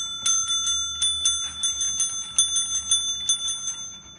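A dog pawing a desk service bell, ringing it over and over in quick dings, about four to five a second. The ringing stops just before the end.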